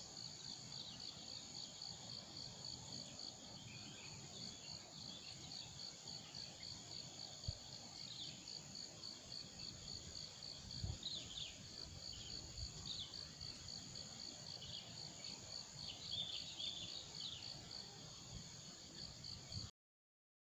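Forest insect chorus: a steady, fast-pulsing high trill with short chirps over it and a few low thumps. The sound cuts off suddenly near the end.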